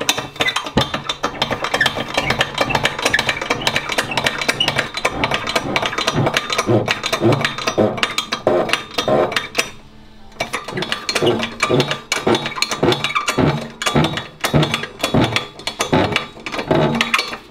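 Background music with a steady, rhythmic beat and sustained bass notes, with a brief drop about ten seconds in.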